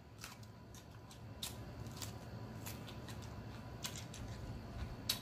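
Close-miked chewing of a raw jalapeño pepper: faint, irregular crunches and wet mouth clicks, the sharpest one near the end.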